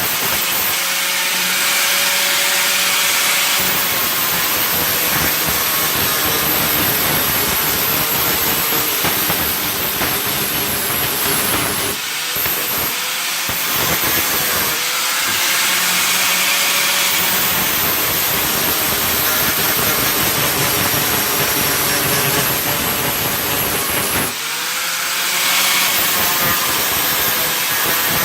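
Electric grinder running against sheet metal, most likely grinding down the welds on a patch panel. It runs in three long stretches, stopping briefly twice and whining back up to speed each time it restarts.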